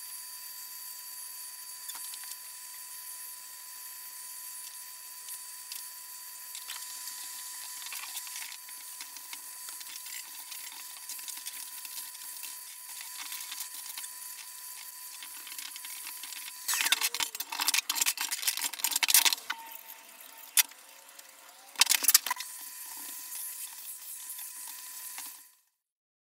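Hoover vacuum cleaner running: a steady whine over an airflow hiss as its nozzle is worked over computer fans and hard-drive cages. Louder bursts of knocking and scraping come about 17 to 19 seconds in and again around 22 seconds as the nozzle meets the parts, and the sound cuts off suddenly near the end.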